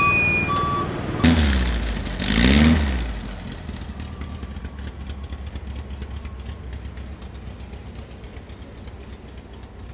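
The last two beeps of a vehicle's reversing alarm, then an engine revs up twice and settles into a steady idle with a fast light ticking.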